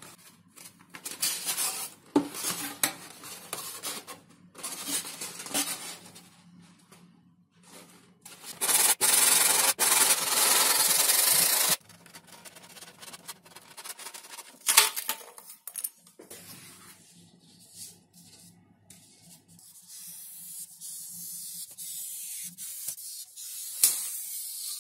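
XPS foam being handled and cut by hand: foam parts rubbing and scraping against each other in short irregular bouts, with a loud steady rasping stretch of about three seconds near the middle. Later a craft knife blade scratches through foam and paper in a quieter, steady hiss.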